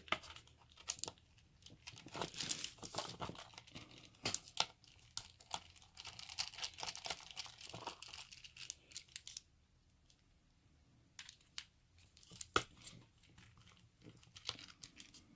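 Scraping and sharp metal clicks as a screwdriver is worked against a Brinks 642 padlock to open up its body for disassembly. The scratchy handling comes in bursts, with a quiet pause about two-thirds of the way through.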